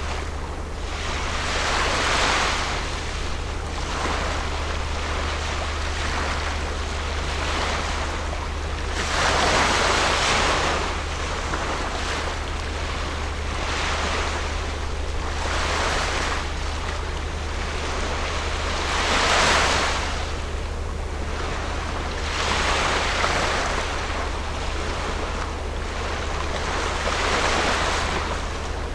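Small waves washing in and breaking on the shore every few seconds, each a hiss that swells and falls away, over a steady low rumble.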